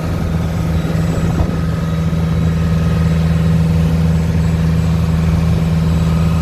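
Fishing boat's engine running steadily, a deep even hum with a noisy wash above it.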